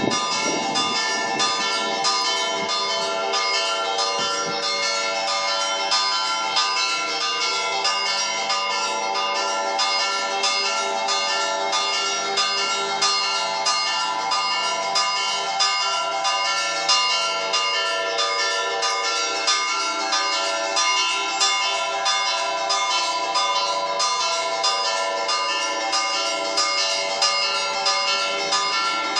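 Four church bells, tuned E, G, B and D-flat, ringing together in a continuous festive peal (scampanio), swung on motorised half-swing headstocks, with dense overlapping strokes.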